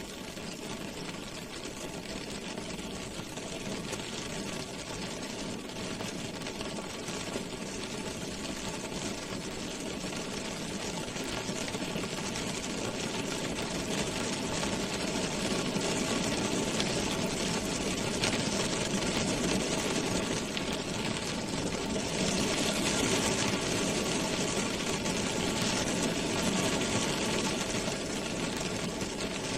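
Rain drumming on a car's roof and windows, heard from inside the cabin as a dense, steady patter of drops. It grows a little heavier about two-thirds of the way through.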